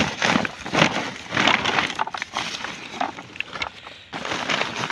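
Carrots poured from a woven plastic sack into a plastic crate: the sack rustles and the carrots tumble and knock together in irregular bursts, briefly quieter just before the fourth second.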